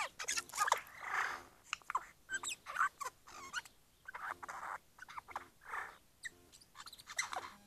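Eurasian jay giving a run of mimicked noises: short clicks, rasping notes and quick whistled glides, one after another without a pause.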